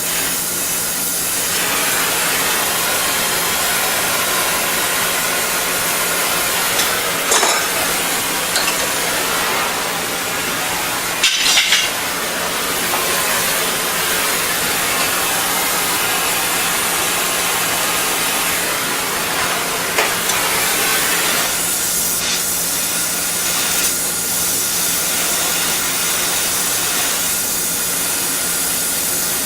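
Air conditioner running with a steady hiss and a low hum. A few brief clicks and scrapes from clamp parts being handled come over it, the sharpest about eleven seconds in.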